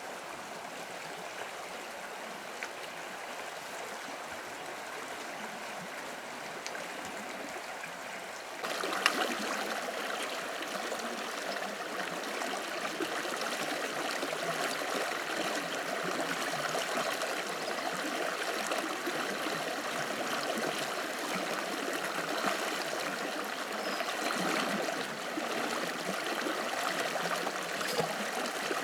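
Steady running water, like a flowing stream. It gets suddenly louder and fuller about nine seconds in, then runs on evenly.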